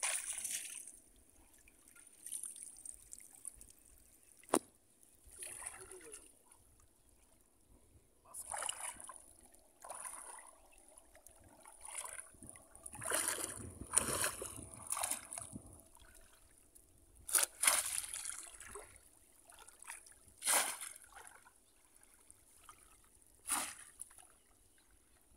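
Shallow floodwater splashing and sloshing in irregular bursts every second or two as people wade and bamboo plunge-basket fish traps are lifted and pushed into the water, with one sharp knock about four and a half seconds in.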